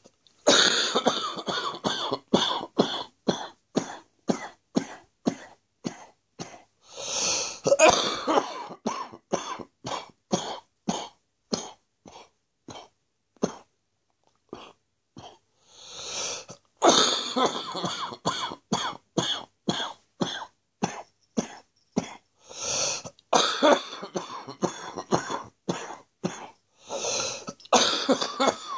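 A person's chesty cough from a chest infection: long fits of short coughs in quick succession, two to three a second, each fit fading as it goes on, broken by longer drawn-in breaths and a brief pause about halfway through.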